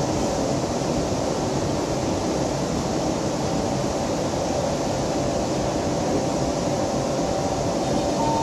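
Steady cabin noise inside a Bombardier MOVIA C951 metro car: an even rumble with a faint hum of steady tones from the train's running gear and ventilation.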